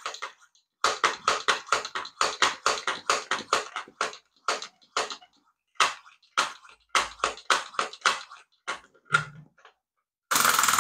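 Built-in piston air pump of a toy air-engine car being worked in quick strokes, about four a second with a few short pauses, each stroke a short puff. Near the end comes a brief rush of escaping air, and the car is not going well: the repaired model still has trouble holding its charge.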